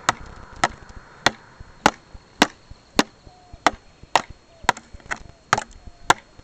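A stick struck hard again and again: about a dozen sharp whacks, evenly spaced at a little under two a second.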